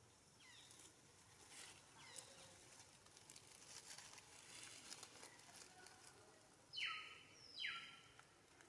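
Faint crackling of dry leaves and a couple of soft falling chirps, then near the end two short, loud animal calls less than a second apart.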